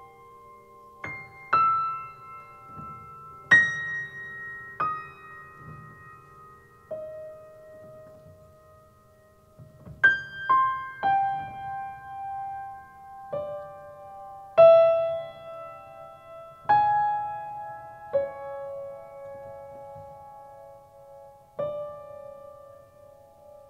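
Grand piano played slowly in a solo improvisation: single notes and sparse chords struck one at a time, about one to two seconds apart, each left to ring and fade. A little before halfway it thins to one fading note before the playing picks up again.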